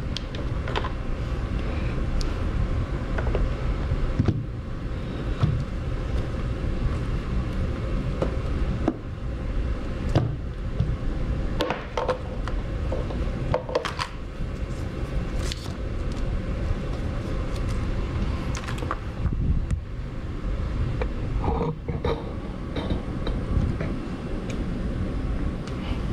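Steady low rumble, with scattered clicks and rustles of battery-charger cables and a plug being handled.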